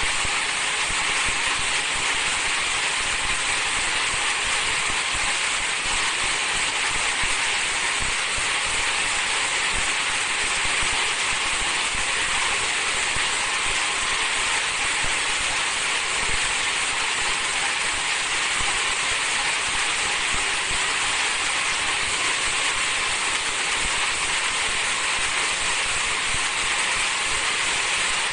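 High-speed film slitting and rewinding machine running steadily: an even, unbroken hiss with no rhythm or changes.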